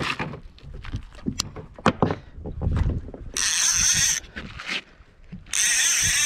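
A few knocks, then a fishing reel's drag screaming twice, each burst under a second, as a hooked kingfish pulls line off the reel.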